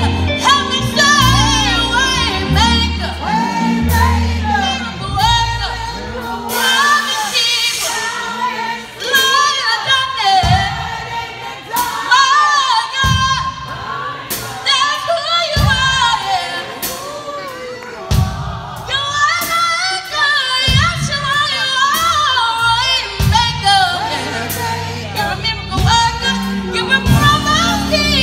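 Live band performance: a man singing into a microphone over electric guitar, bass guitar and drums.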